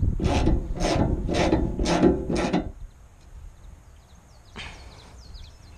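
Small ratchet wrench tightening a radiator hose clamp: six quick ratcheting strokes at about two and a half a second, stopping a little under three seconds in.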